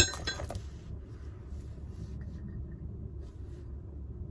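A sharp metallic clank with a short ring as steel parts of a van's scissor jack and its handle knock together, then faint handling scrapes over a steady low background rumble.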